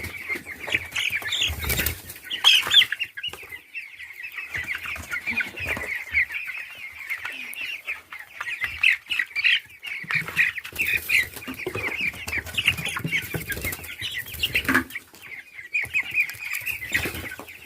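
A flock of three-week-old chicks peeping continuously in a dense chorus. Bursts of wing flapping and scuffling come as the chicks are grabbed and pushed out of the nursery, the loudest about two seconds in.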